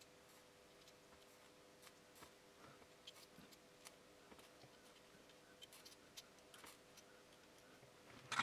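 Near silence: faint room tone with a few faint small ticks and a faint steady hum that stops about halfway, then a sharper click just before the end.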